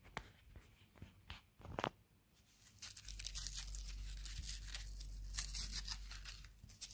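Thin tissue paper crinkling and tearing as the paper cap is pulled off a firecracker's top: a few separate rustles and clicks first, then a denser crackling run from about two and a half seconds in.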